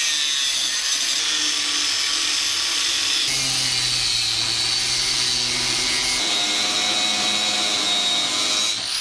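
Power tool cutting metal bracket stock: a steady, loud, high hiss with a whine in it, whose pitch shifts about three seconds in and again about six seconds in.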